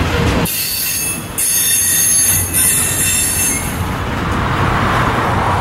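Railroad car wheels squealing against the rails as a train rolls by: several steady, high-pitched squeal tones over the rolling noise, dying away about four seconds in.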